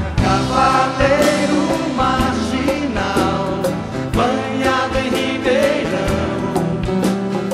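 A live band performing a song: singing over acoustic guitar and a drum kit, with steady snare hits.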